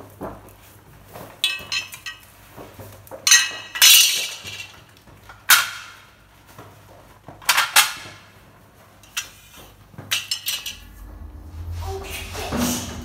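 Painted steel rack beams clinking and clanking against each other as they are handled: about seven sharp metallic strikes, each with a short ringing tail. Near the end a low steady hum comes in.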